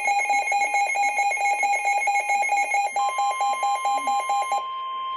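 Rapid electronic alert beeping, about eight beeps a second. About three seconds in, a steady NOAA Weather Radio warning-alarm tone joins it, which signals an incoming warning broadcast. The beeping stops about a second and a half later, leaving the steady tone alone.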